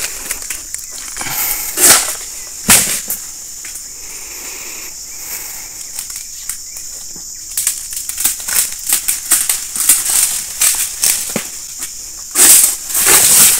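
Oil palm harvester's long-pole sickle (egrek) working at the fronds in a palm crown: a run of short, sharp cutting strokes in the middle, then a louder rustling burst near the end. A steady high insect drone runs underneath.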